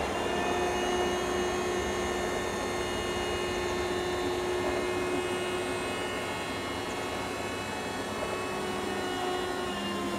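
TD96/2 level crossing barrier drives raising the booms after a train has passed: a steady electric hum with a thin whine, which cuts off near the end as the booms come upright.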